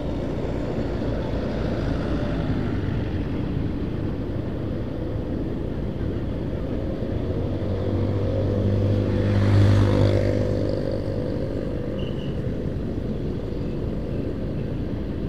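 Motorcycle riding: steady engine and road noise from the bike carrying the camera. About ten seconds in, another vehicle's engine swells and fades as it passes close by.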